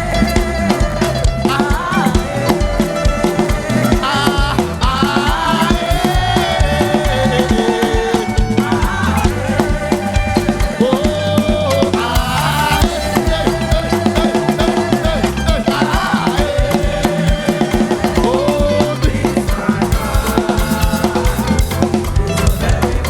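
Live church praise music with a drum kit playing a steady, busy beat on bass drum and snare under shifting melodic lines.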